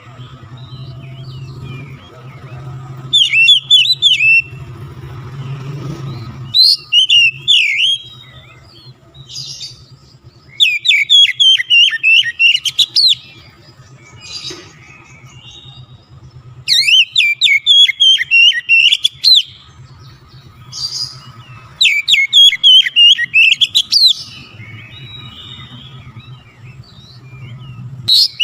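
Oriental magpie-robin singing in about five loud bouts of rapid whistled and chattering notes, separated by pauses of a few seconds, over a faint steady low hum.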